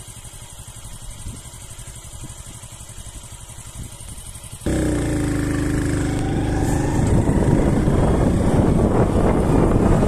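Motorcycle engine running at low speed. About halfway through it cuts abruptly to riding: the engine is much louder, and from a couple of seconds later a rushing noise of wind on the microphone is mixed in.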